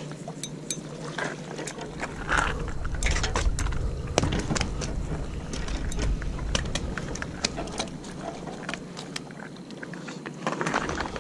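Wind rumbling on the microphone and water washing against jetty rocks, with many scattered sharp clicks. The rumble is strongest from about two and a half to seven seconds in.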